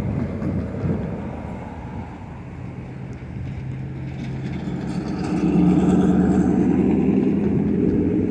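Wind buffeting the microphone at first, then a steady vehicle engine hum that grows louder about five seconds in.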